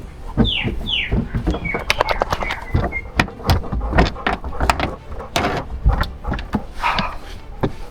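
Hands-on knocking and clunking of metal and plastic parts as the fuel tank's filler neck is worked into place under a car, with two short falling squeaks near the start.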